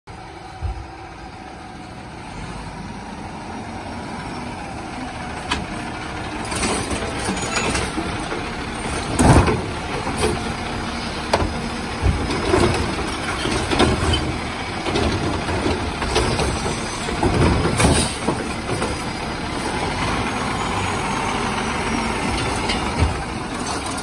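Automated side-loader garbage truck running close by, its diesel engine growing louder as it pulls up. Its loading arm makes a series of sharp clanks and bangs between about 9 and 18 seconds in, the loudest about 9 seconds in.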